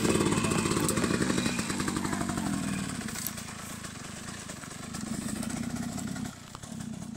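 Yamaha dirt bike engine with its revs falling after a tyre burnout, then running on as the bike rides away, growing steadily fainter.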